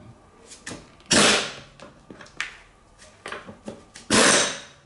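Air impact wrench working the rear axle nut of a Honda Today scooter in two short bursts, about a second in and again near the end, with a few light clicks between them.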